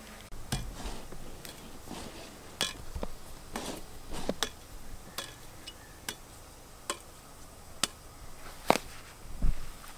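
Light, sharp clicks and metallic taps from a metal grill spatula being handled beside a gas grill, about a dozen at uneven intervals. The loudest click comes near the end, followed by a dull thump.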